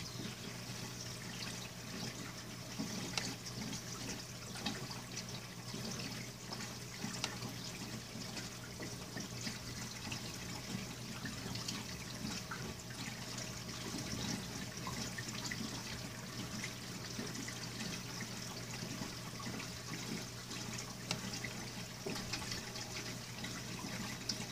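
Reef aquarium water running and trickling steadily, with a low steady hum underneath.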